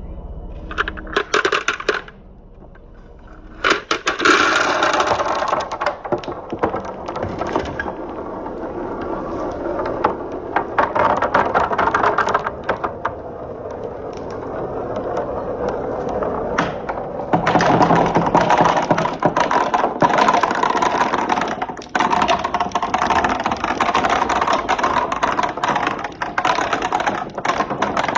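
Marbles rolling and clattering along a marble run's rails: a dense, continuous stream of small clicks and rattles that grows louder about two-thirds of the way through.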